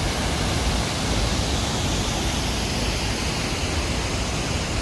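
A waterfall rushing in a loud, steady, even noise that does not change.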